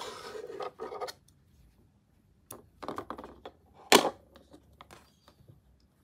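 Handling noise from a crocheted cotton square and its yarn: rustling and rubbing for about the first second, then scattered light clicks and one sharp tap about four seconds in.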